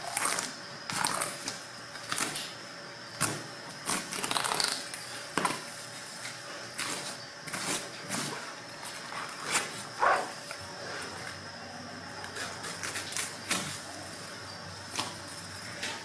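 Long kitchen knife slicing a flatfish fillet off the bones on a plastic cutting board: irregular short scrapes and clicks as the blade runs along the bones and touches the board, over a faint steady high tone.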